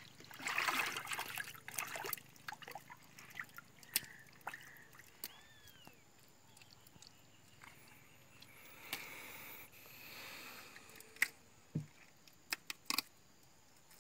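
Faint water trickling and sloshing in and around a wooden canoe, loudest in the first two seconds and again more softly later on. Scattered small clicks and knocks, several in quick succession near the end.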